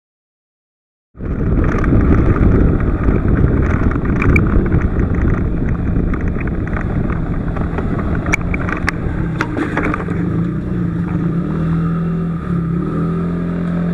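A vehicle driving, heard through a dashcam microphone: a loud rumble of engine and road noise starts about a second in. A few sharp knocks come about eight to ten seconds in, then a steady engine hum.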